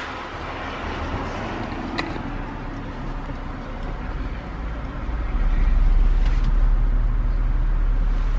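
Cabin noise of a car being driven: a steady rush of road and engine noise with a low rumble that grows louder about five and a half seconds in. A single sharp click about two seconds in.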